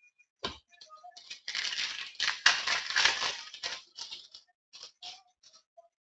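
Hockey card pack wrapper being torn open and crinkled, a dense crackling rustle of about two seconds in the middle, with a sharp snap before it and small crackles after.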